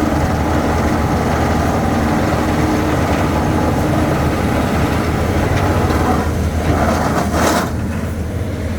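Heavy construction machinery running steadily with a deep hum. A brief hissing burst comes about seven and a half seconds in, after which the sound is a little quieter.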